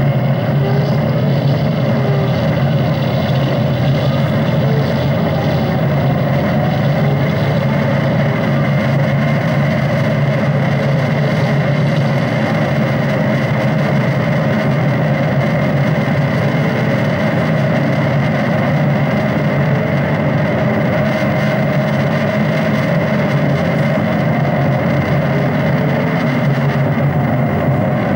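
Live electronic soundscape played from a laptop: a dense, steady, engine-like drone with a strong low hum, over which faint swooping tones rise and fall now and then.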